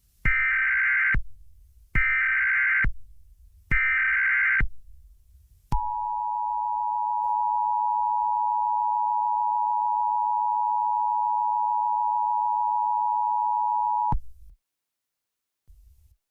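Emergency Alert System header: three bursts of buzzy digital data tones, each about a second long, then the steady two-tone attention signal, which holds for about eight seconds and cuts off abruptly.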